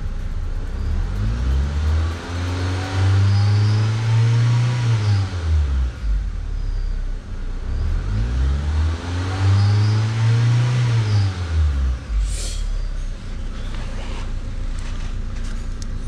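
Honda VTEC four-cylinder engine in a 2005 Civic revved twice from idle to above about 3200 RPM, where the RPM window switch engages the VTEC solenoid. Each rev rises smoothly, holds briefly and falls back to idle.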